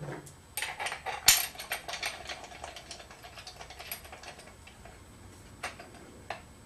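Metal clicks and rattling as a bolt is picked up and hand-threaded through a metal corner into the end of a stretcher-frame roller: a quick run of clicks in the first few seconds, the loudest about a second in, then a few scattered clicks.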